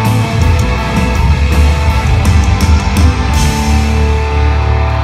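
A live rock band playing loud through the PA: distorted electric guitars, bass and drums. Cymbal hits come until about three seconds in, then a chord rings on.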